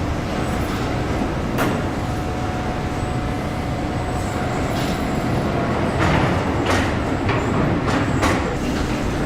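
Car assembly-line machinery running with a steady hum, broken by a few sharp clanks and short hissing bursts.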